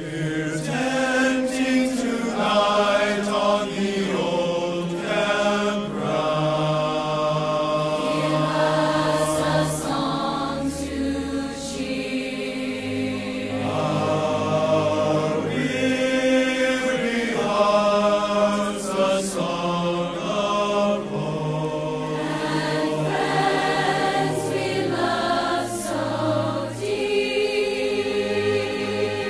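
A choir singing slow, held chords, the voices moving to a new chord every second or two.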